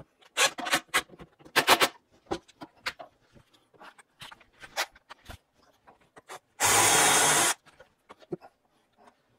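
Cordless drill-driver driving a screw into a brass hinge on a wooden swing arm: first a string of short, sharp clicks and knocks, then the drill runs steadily for about a second.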